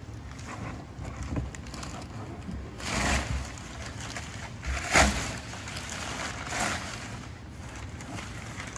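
Brown kraft packing paper rustling and crinkling as hands dig through a cardboard shipping box, with a louder rustle about three seconds in and the loudest about five seconds in.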